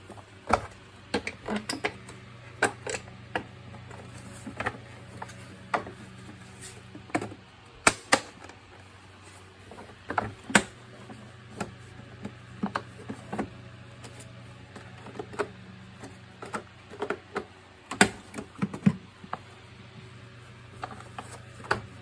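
Irregular clicks and knocks of hard plastic as an Electrolux ErgoSpace vacuum cleaner's top cover is fitted back onto its body and snapped into place.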